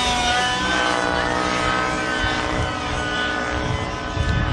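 Radio-controlled helicopter flying freestyle aerobatics, its rotor and motor whine rising and falling in pitch.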